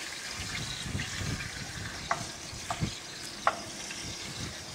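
Rabbit pieces sizzling as they brown in a cast-iron dutch oven, stirred with a utensil that scrapes and knocks against the pot, with a few sharp clicks in the second half.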